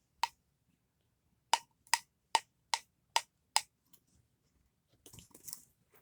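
Plastic pop tube fidget toy snapping with sharp clicks: one, then a run of six evenly spaced at about two and a half a second, followed by a brief soft rustle near the end.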